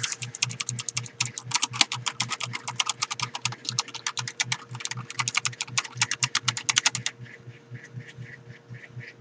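Rapid typing on a Wellrui V802 87-key keyboard with elastic switches: a dense, fast run of key clicks. About seven seconds in it changes to a quieter, duller series of regular taps.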